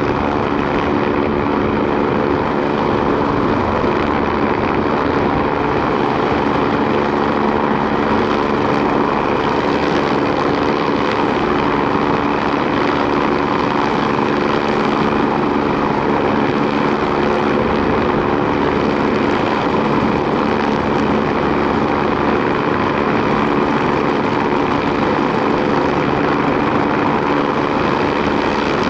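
MBB BK117 B-2 twin-engine rescue helicopter hovering, its rotor and turbines running steadily without change.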